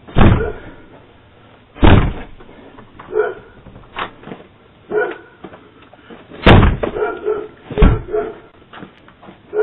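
Heavy bangs on a door, four loud blows a few seconds apart with lighter knocks between, heard through a Ring doorbell camera's narrow-band microphone.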